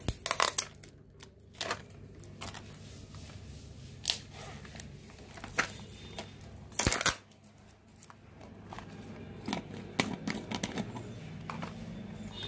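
A plastic pen jar being opened by hand: irregular clicks, knocks and rustles as the red screw cap is worked at and twisted off, the loudest knock about seven seconds in.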